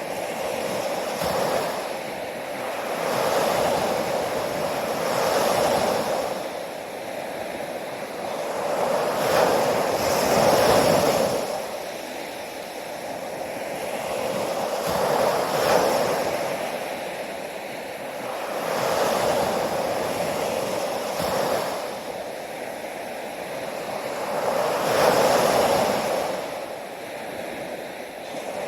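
Ocean waves breaking and washing up the shore, the surf swelling and fading every few seconds.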